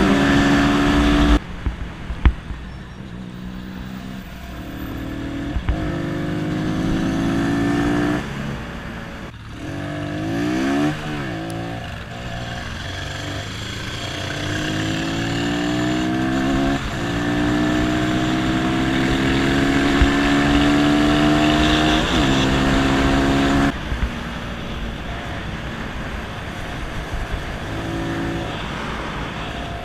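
Stock Voge Brivido 125R single-cylinder motorcycle engine accelerating through the gears: the note climbs in each gear and drops sharply at every upshift. About a third of the way in it slows and revs back up, and near the end it falls to a lower, steadier run.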